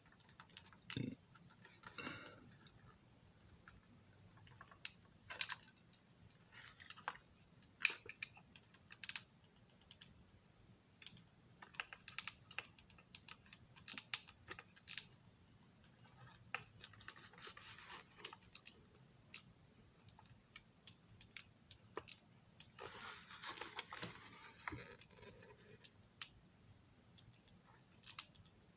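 Scattered faint clicks and taps, with a few brief scraping rustles, from hands handling a model railroad passenger car while hot-gluing its end cap in place.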